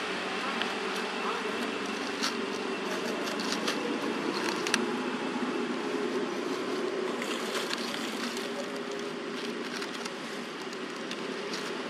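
A steady background hum with scattered short crackles of dry leaves, stirred as a baby macaque scrambles through them and onto a root.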